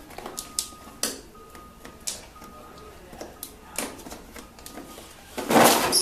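Scattered clicks and knocks of a plastic-sheathed wiring harness and its connectors being handled and fed through a golf cart's front trap door, with a louder scraping rustle near the end.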